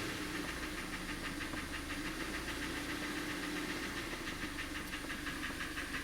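Kia Cerato 2.0-litre petrol engine running with a rapid, even knock. Other shops blamed it on the timing chain; the mechanic doubts that and suspects cylinder scoring, crankshaft bearings or piston pins.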